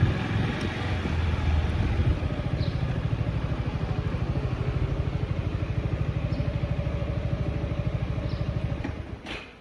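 Motorcycle engine running steadily with an even, rapid pulse, then shut off about nine seconds in.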